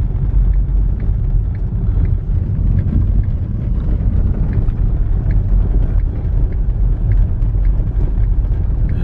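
Car driving through deep snow, heard from inside the cabin: a steady low rumble of engine and tyres.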